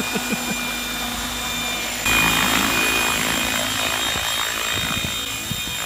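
Radio-controlled model helicopter running, its motor and rotor giving a steady high whine. About two seconds in it gets suddenly louder with a rush of rotor noise as the helicopter lifts off the ground.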